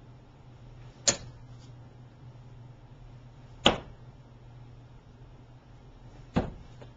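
Three darts striking a dartboard one after another, each a single sharp thunk, about two and a half seconds apart.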